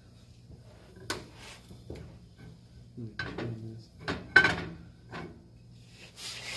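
A series of short knocks and clinks of metal parts and tools being handled during brake and axle reassembly, the loudest about four and a half seconds in, over a steady low hum.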